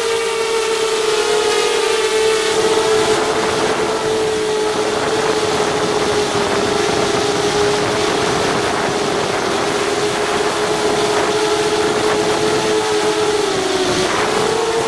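Racing quadcopter's brushless motors and propellers whining steadily close to the onboard microphone. The pitch sags slightly near the end and then climbs again as the motor speed changes.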